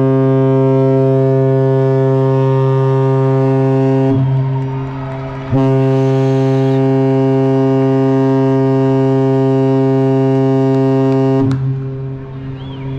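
Cruise ship's horn sounding two long, loud blasts: the first cuts off about four seconds in, and the second starts a second and a half later and holds about six seconds. It is a departure signal, heard while the ship's late passengers are still on the pier.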